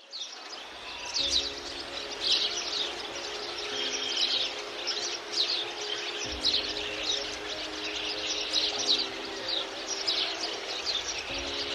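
Many small birds chirping and singing, a dense run of quick high chirps, over soft sustained music chords that change about every two and a half seconds.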